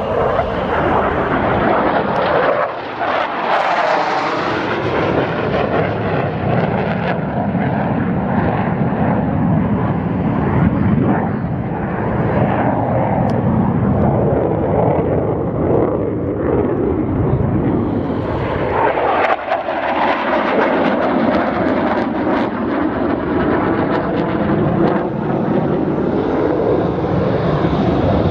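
F-16 Fighting Falcon's Pratt & Whitney F100 turbofan running through a flying display: loud, continuous jet engine noise whose pitch sweeps as the jet passes, about three seconds in and again about nineteen seconds in.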